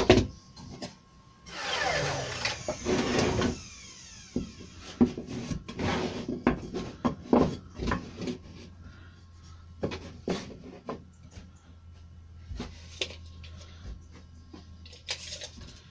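Pine frame pieces being handled on a wooden workbench: a couple of seconds of rattling, sliding scrape, then a run of light wooden knocks and clacks as the rails and stiles are set down and butted together.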